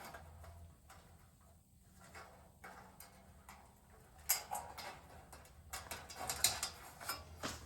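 Light metallic clicks and taps of pliers bending a sheet-metal tab on a dryer heating element, a cluster about four seconds in and more near the end.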